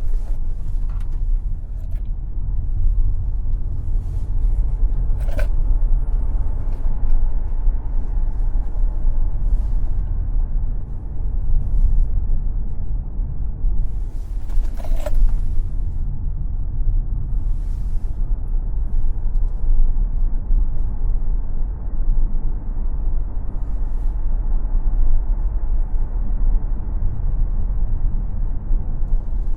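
Tesla Model X electric car driving on a racetrack: a steady low rumble of tyre and road noise, with no engine sound. A few sharp creaks cut in, the clearest about five seconds in and again about fifteen seconds in.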